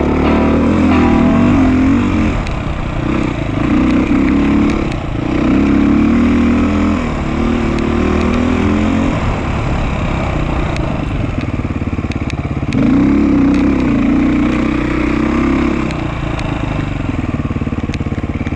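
Dirt bike engine ridden hard over trail, its pitch rising and falling in repeated throttle surges with short lulls as the rider backs off.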